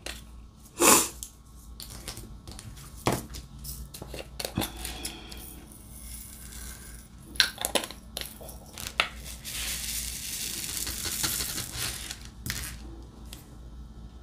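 Diamond painting work: the drill pen and drill pot give scattered light clicks and taps as resin drills are picked up and placed. About ten seconds in there is a couple of seconds of crinkly rustling.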